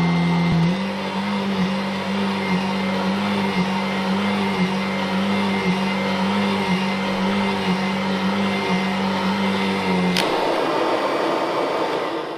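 Kirby G7 vacuum running with its Techdrive self-propelled transmission engaged: a steady motor hum with a light regular pulse, the normal, non-grinding sound of a healthy Techdrive. About ten seconds in, the low drive tone cuts off with a click, and the motor then winds down near the end.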